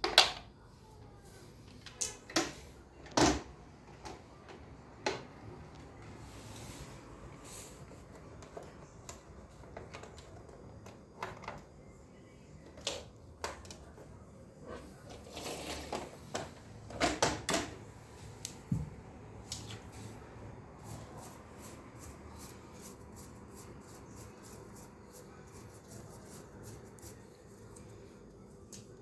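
Scattered clicks and knocks of objects being handled, with light rustling between them. The loudest click comes right at the start, and there is a busier cluster of knocks a little past the middle. The second half is quieter.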